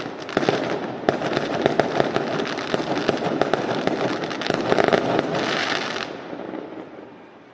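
Fireworks going off in a dense run of sharp bangs and crackling, which dies away over the last second or so.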